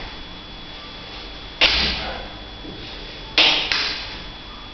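Two quick marker strokes on a whiteboard, drawn along a plastic set square, about a second and three-quarters apart; each starts sharply and trails off over about half a second.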